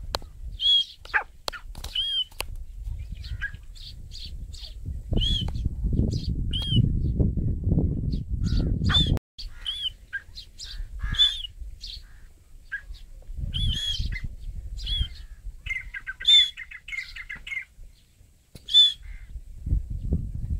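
Teetar (francolin) calling over and over in short, high, arched notes, with a rapid chattering phrase about two-thirds of the way in. Low rumbling noise comes and goes underneath.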